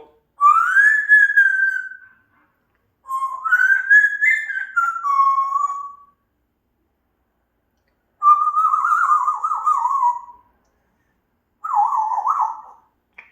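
African grey parrot whistling four separate phrases. The first rises and then holds, and the last two warble and waver in pitch.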